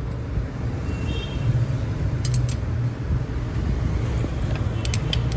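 A steady low rumble of road traffic, with a few sharp metallic clicks about two seconds in and again near the end from a 10 mm ring spanner working the tappet adjuster lock nuts on a motorcycle engine.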